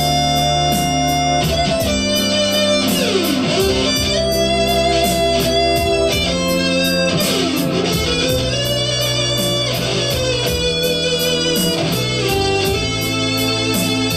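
Instrumental music led by electric guitar, with bending lead notes over a steady beat.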